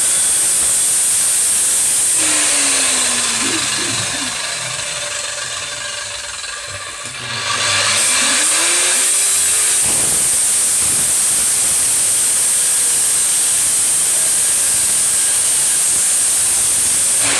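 Angle grinder with a cutting disc grinding through the steel of a safe, a loud, high-pitched grind. It eases off for a few seconds in the middle, then bites in and cuts at full strength again.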